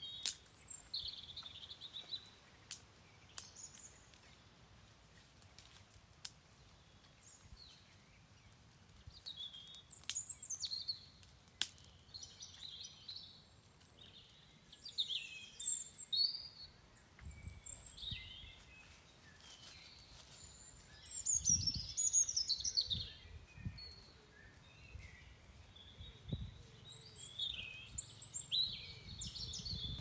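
Birds chirping and calling in short, quick sweeping phrases, heard on and off throughout, with a few sharp clicks and some dull low thumps.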